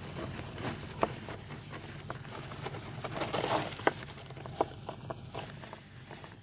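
Tea glasses, teapot and sugar being handled: scattered light clinks and knocks, with a short splashing pour a little past the middle, over a low steady hum.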